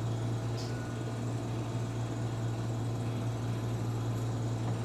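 A steady low hum with a faint background hiss, unchanged throughout, and one faint tick about half a second in.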